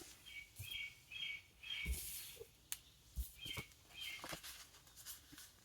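A bird chirping: short, high chirps about twice a second, four in a row, then two more after a pause, with a few faint taps in between.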